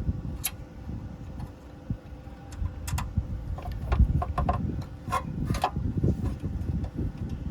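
Scattered light clicks and short metallic clinks, several in quick succession in the middle, over an uneven low rumble of handling or wind noise.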